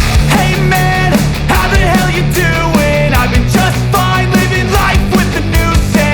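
Loud rock music with a steady, driving drum beat, a bass line and a melody line over it.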